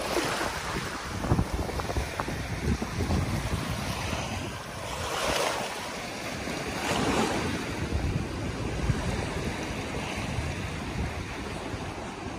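Small waves washing onto a sandy shore, with two louder washes about halfway through, over wind buffeting the microphone.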